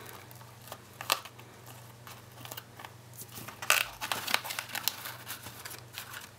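Rustling and light taps of a cardstock treat box and its ribbon being handled and its flaps opened, with a sharp rustle about a second in and a busier cluster from about four seconds in.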